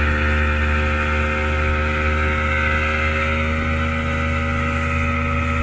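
Mercury outboard motor running at speed under load while towing a banana boat. Its pitch creeps up slightly in the first couple of seconds, then holds steady.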